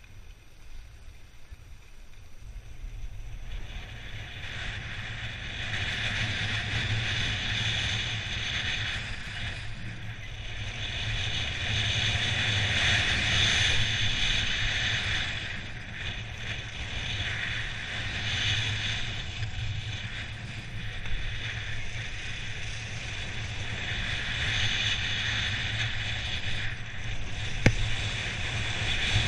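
Skis hissing and scraping over firm snow in a run of wide carved turns, quiet at first and building about four seconds in, then swelling and easing with each turn. Wind rumbles on the microphone throughout, and a single sharp click sounds near the end.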